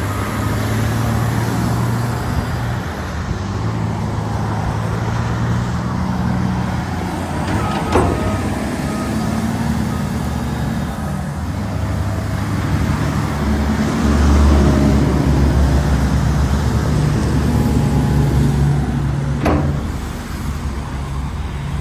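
Caterpillar 928G wheel loader's diesel engine running, its speed rising and falling. There are two sharp knocks, one about 8 seconds in and one near the end.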